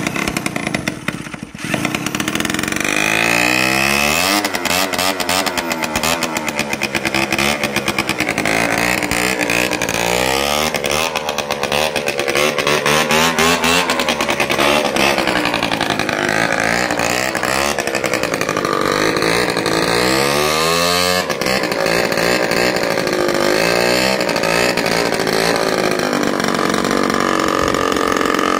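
Small moped engine, running with no exhaust fitted, revving up and down repeatedly as the bare bike is ridden around. The revs drop and climb again about 21 seconds in.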